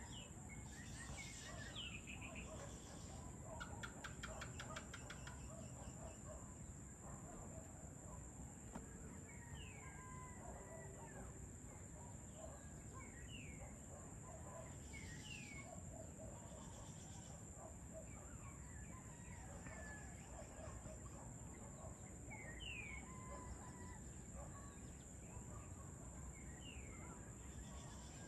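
Faint dusk bird chorus: many short falling whistles and chirps from several birds, with a quick rattling series about four seconds in. A steady high-pitched tone and a low distant rumble run underneath.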